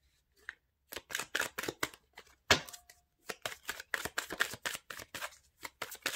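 Deck of tarot cards being shuffled by hand: a quick, irregular run of short card flicks and snaps beginning about a second in, with one sharper snap about two and a half seconds in.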